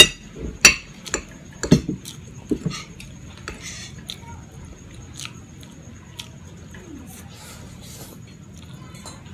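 Metal fork clinking and scraping on a ceramic plate while twirling fettuccine, a handful of sharp clinks in the first three seconds and fainter ones after, with close-up chewing of the pasta.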